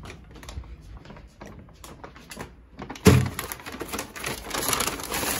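Brown paper bag handled with light rustles and taps, set down on a desk with a thump about three seconds in, then crinkling loudly as it is opened.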